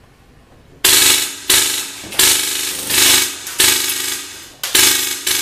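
Tippmann Omega HPA airsoft rifle firing on full auto, in about six rapid bursts one after another starting about a second in. It runs on compressed air with an electronic trigger, and the rate of fire is very fast.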